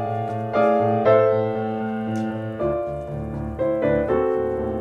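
Background piano music: a slow piece of held chords, with new notes struck every half second to a second and a lower bass note coming in about halfway through.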